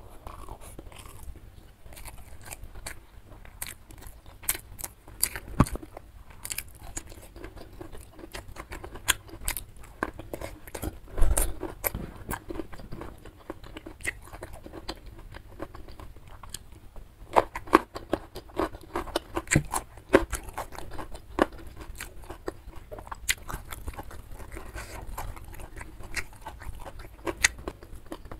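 Close-miked chewing and biting of rice and side dishes from a nasi padang meal eaten by hand: irregular wet mouth clicks and smacks with occasional crunches, the loudest about eleven seconds in.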